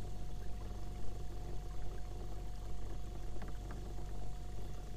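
Home-built electric trolling motor on a kayak running steadily at speed: a constant low hum with a steady whine, over water rushing along the hull.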